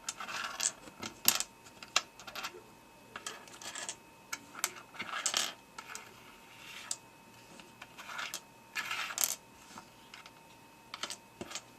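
Small plastic pieces of a disassembled LanLan Rex Cube clicking and clattering as they are handled and sorted, in irregular clicks and short rattles.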